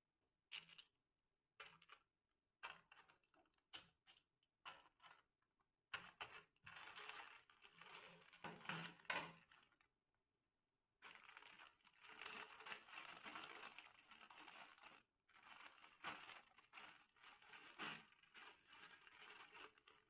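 Plastic snack packets crinkling and rustling as they are handled and opened. A few sparse crackles come first, then longer stretches of dense crinkling with a brief pause about halfway through.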